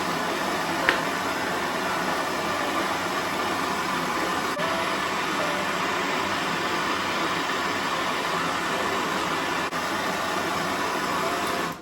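Gas plumbing torch burning with a steady hiss, heating a soldered copper pipe joint to melt the solder so the fittings can be pulled apart. It cuts off at the end.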